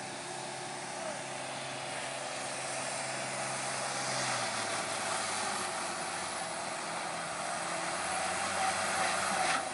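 Heavy truck's diesel engine labouring hard on a steep climb, a steady drone whose low note drops away about halfway through. A sharp click near the end.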